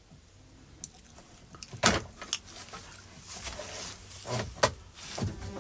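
Handling noise from a wire being pulled through a cutout in a plastic dash panel: light scraping and rustling, broken by a few sharp clicks and knocks, the loudest about two seconds in.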